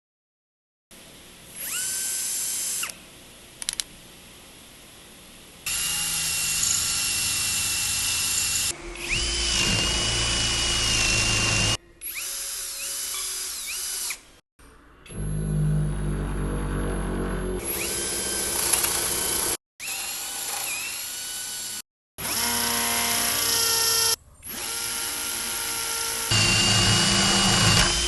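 Bauker 13 mm cordless hammer drill run in a series of short bursts, its motor whining up to speed at each pull of the trigger and winding down when released. In several runs a heavy, rough low rumble joins the whine.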